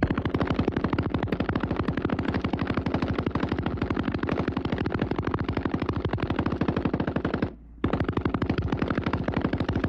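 Browning water-cooled machine gun firing a long, continuous burst of rapid, evenly spaced shots, with one short break about seven and a half seconds in before it fires again.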